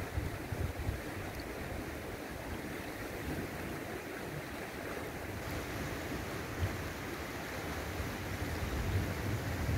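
Shallow river running over a gravel and pebble bed, a steady rushing and rippling of water. Wind buffets the microphone with low, uneven rumbles.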